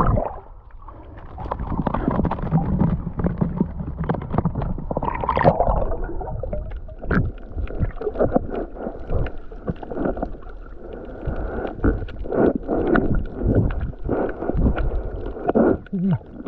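Seawater sloshing and gurgling around a waterproof action camera as it moves through shallow water, with irregular splashes and knocks.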